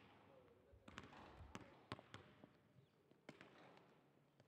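Faint basketballs bouncing on a hardwood court: several short sharp thuds at uneven intervals.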